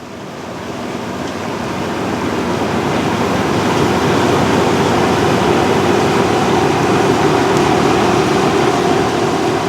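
Massey Ferguson 40RS combine harvester working, its engine and threshing gear running with a steady hum and drone. The sound grows louder over the first three seconds, then holds.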